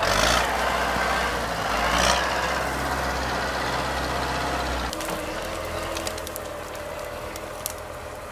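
MTZ-82 tractor's four-cylinder diesel engine running with a steady low drone, swelling briefly near the start and again about two seconds in. About five seconds in the engine sound drops and grows quieter, with a few scattered sharp clicks near the end.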